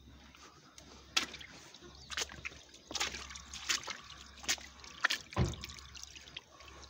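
Small fish splashing and flicking in the shallow water left in a nearly dried-up channel: a string of short, sharp splashes over a faint steady trickle. The fish are stranded and crowded as the water drains away.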